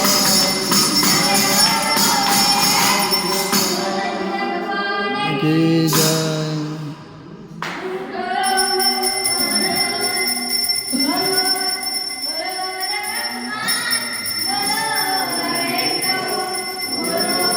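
Group of boys singing an aarti together, with a ringing bell and jingling hand percussion. The singing dips briefly about seven seconds in.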